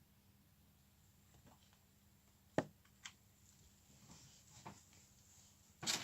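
Cloud slime being handled for ASMR: faint, soft squishes, with a sharp click about two and a half seconds in, a smaller one half a second later, and a louder rustle near the end.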